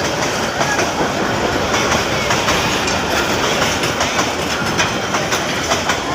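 Passenger train running on the rails: steady, loud running noise with frequent wheel clicks over the rail joints.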